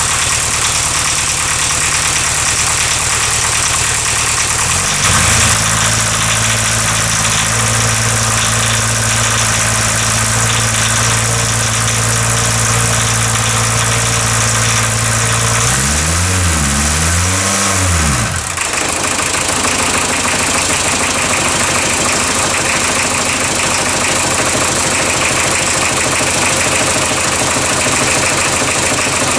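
1977 VW Rabbit's four-cylinder diesel running rough just after a cold start, on only three cylinders because one injector has yet to bleed out. The revs are held up by hand for a while, rise and fall twice about two-thirds of the way through, then drop back to an even idle.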